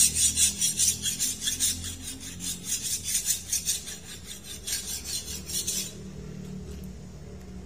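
A hand file or rasp scraping in quick, even back-and-forth strokes that stop abruptly about six seconds in.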